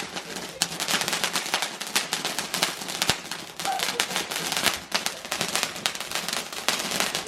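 Fireworks going off: a dense, rapid run of crackling pops and bangs.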